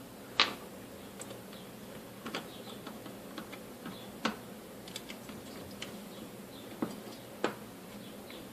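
Scattered light clicks and taps of small plastic and metal stapler parts being handled and set down. The loudest comes about half a second in, and two more come close together near the end.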